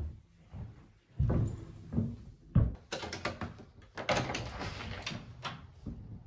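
Footsteps along a hallway, then a key turning in a front-door deadbolt with a run of metallic clicks and rattles as the door is unlocked and opened.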